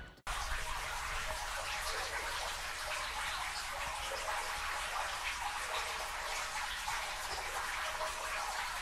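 Flowing water: a steady, even rush that starts abruptly a moment in.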